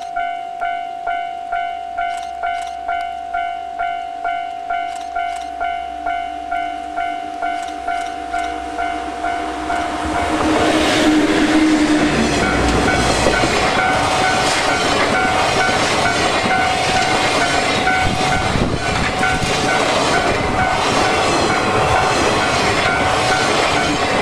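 Japanese railway level-crossing alarm ringing its electronic bell about twice a second. About ten seconds in, a train arrives and runs over the crossing, its wheels clattering rhythmically over the rail joints, while the bell keeps ringing.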